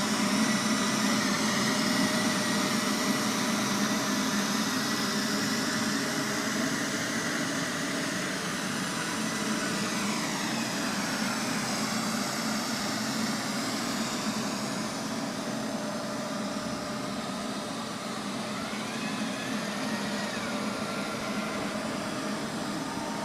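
Robot vacuum cleaner running: a steady whir and hum from its motor, growing a little quieter as it goes on, with a few brief tones that slide up and down partway through.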